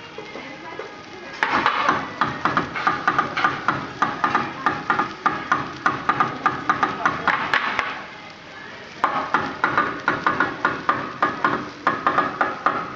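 Teppanyaki chef's metal and glass seasoning shakers rapped and clattered in a quick rhythm, about four sharp ringing strikes a second. The strikes stop briefly about eight seconds in, then resume.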